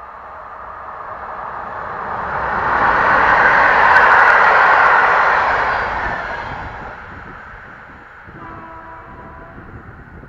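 Electric passenger train of long coaches passing on the line: wheel and rail noise builds as it approaches, is loudest about four seconds in, then fades as it draws away. A brief steady pitched tone sounds about eight seconds in.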